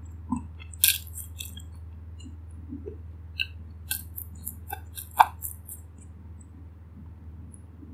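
Close-miked chewing of a mouthful with the mouth closed: scattered wet mouth clicks and small crunches, the sharpest about five seconds in, over a low steady hum.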